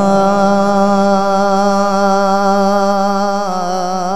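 A male Qur'an reciter's voice holding one long melodic note in tajweed recitation, steady in pitch with a slight waver, then moving to a new pitch near the end.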